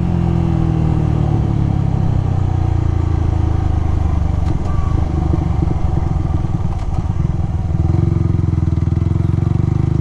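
A vehicle's engine running steadily with a low drone, heard from on board. Its note shifts slightly about eight seconds in.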